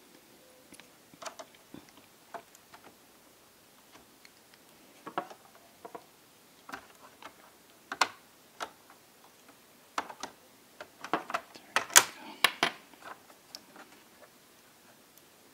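Irregular clicks and taps of plastic and small metal parts as hands and a small screwdriver work on a Sony Vaio F series laptop's opened chassis at the hinge and speaker strip. A quick run of louder clicks comes toward the end.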